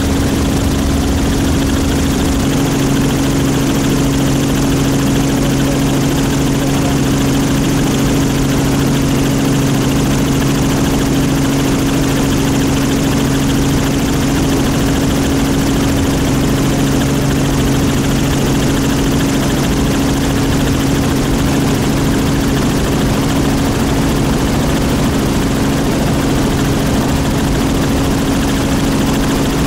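Steady drone of an aircraft's engine heard from on board, an even hum with no change in level. A lower steady tone joins about two seconds in.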